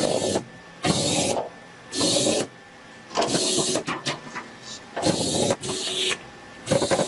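Automatic labelling machine feeding its label web in short whirring bursts, roughly once a second, with a faint steady whine underneath.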